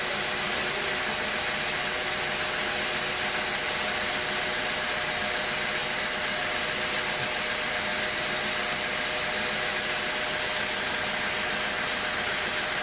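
Homemade sawmill running steadily, giving an even mechanical noise with a few constant tones and no change in load.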